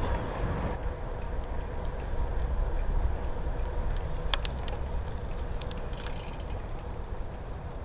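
Bicycle riding noise: a steady low rumble of wind and tyres on the microphone, with a few sharp clicks about four seconds in.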